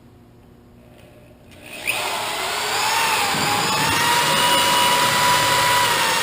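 A motor-driven machine starts just before two seconds in and runs steadily and loudly, with a whine that rises briefly and then holds.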